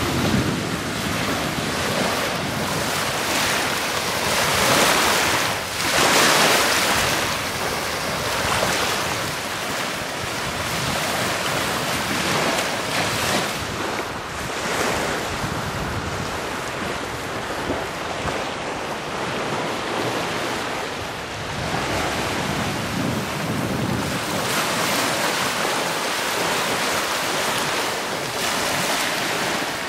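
Small Lake Michigan waves washing onto a sand beach, a steady rushing noise that swells a few times, mixed with wind buffeting the microphone.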